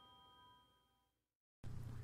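Near silence: the faint last ringing of a bell-like chime dying away, then a brief total dropout about one and a half seconds in before a faint low hum returns.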